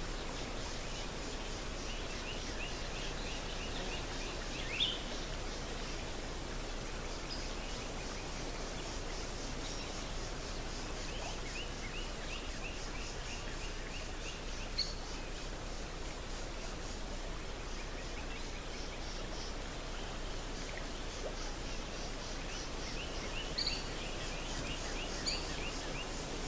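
Outdoor ambience with a steady hiss, a fast high pulsing chirp that never stops, and three runs of short repeated bird-like calls, with a few brief sharper chirps between them.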